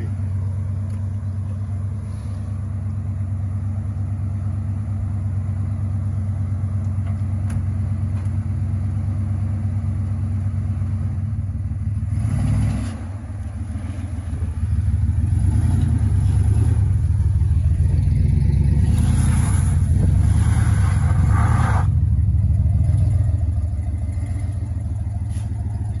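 Buick 455 V8 engine running as the car is driven. It dips briefly about halfway, then runs louder for about eight seconds as it pulls harder, before settling back.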